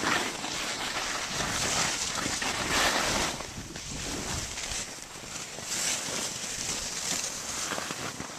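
Skis hissing through deep powder snow while skiing downhill, with wind rushing over the microphone; the rush swells and fades several times.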